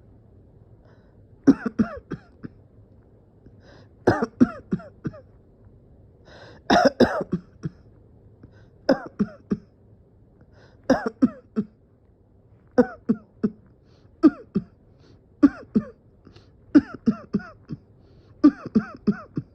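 A person in a prolonged coughing fit: bouts of two to four harsh, voiced coughs come back about every two seconds without a break.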